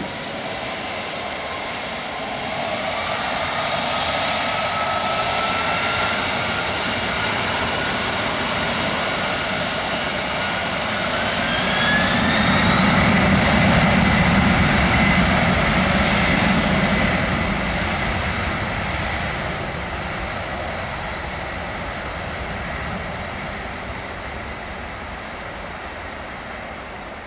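Boeing 767-300ER's jet engines running with a high turbine whine that climbs in pitch about eleven seconds in as the engines spool up for takeoff. The engine noise swells, then fades steadily as the airliner rolls away down the runway.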